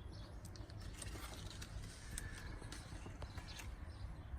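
Outdoor garden ambience: faint bird chirps over a low rumble, with a few scattered sharp clicks.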